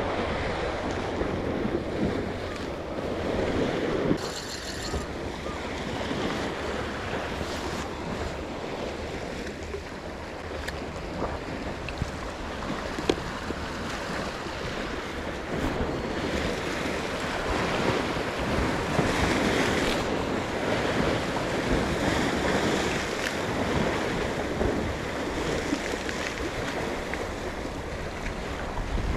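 Sea surf washing against a rocky shore, with wind buffeting the microphone; an occasional sharp click, the sharpest about thirteen seconds in.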